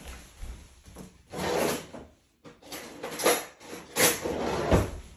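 A kitchen drawer sliding open and shut with cutlery rattling as a spoon is fetched, in several short bursts.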